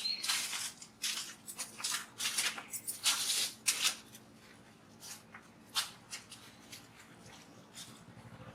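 Irregular rustling and scraping noises, several short bursts a second for about four seconds, then sparser and fainter.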